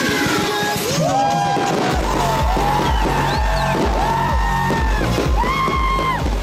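Music with pitched, gliding melody lines; a steady bass beat comes in about two seconds in.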